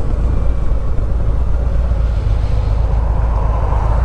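Harley-Davidson V-twin motorcycle running under way, its steady low rumble mixed with wind rushing over a helmet-mounted microphone.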